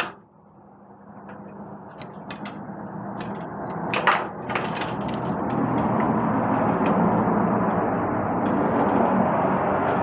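Metal clicks and knocks of a Tasman Mark III security door lock's lever handles being fitted back on by hand. A sharp click comes at the start and a louder clatter about four seconds in, over a steady background noise that grows louder over the first few seconds.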